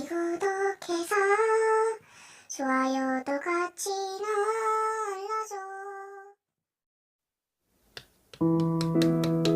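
A young, high voice singing a short sing-song phrase for about six seconds, then a pause of near silence with a click, then piano music starts about eight seconds in.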